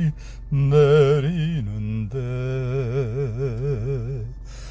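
A man singing a slow Korean song about falling snow unaccompanied, drawing out long notes with a wide vibrato and pausing briefly for breath at the start and near the end.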